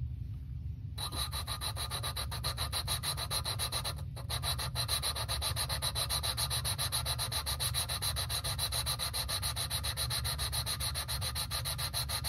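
A valve being lapped into its seat in an aluminum Edelbrock cylinder head: lapping compound grinds between the valve face and seat in a rapid, even back-and-forth rub that starts about a second in.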